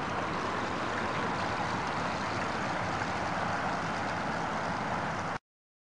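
Steady rushing water noise of a 1/6-scale model Mersey-class lifeboat running across a river, leaving a wake. The sound cuts off suddenly about five and a half seconds in.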